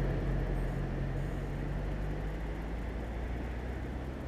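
Car engine and road noise from a moving car: a steady low hum that slowly gets quieter.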